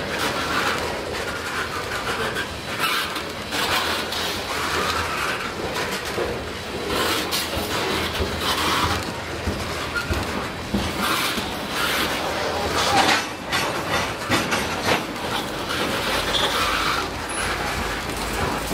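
Freight train of tank cars rolling past close by, its wheels clacking over the rail joints again and again, often in pairs, over a steady rumble of rolling steel wheels.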